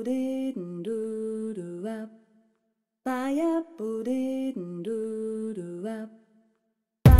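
Intro jingle: a short melodic phrase of a few held, stepped notes, played twice with a brief silence after each. Louder music with a beat cuts in at the very end.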